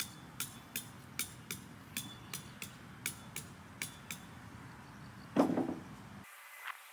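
Hammer striking metal tent pegs in quick succession, about three sharp clinks a second, with one louder, duller knock about five and a half seconds in.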